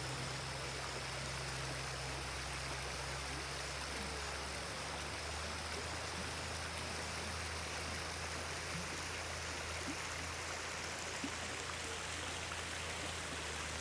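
Water of a river or stream flowing steadily, with water running over rocks at the bank, an even rushing hiss that does not change.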